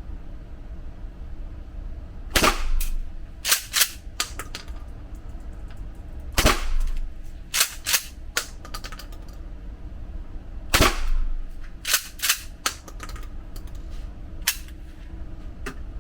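Gunshots: three loud shots about four seconds apart, with several fainter sharp shots and clicks in between.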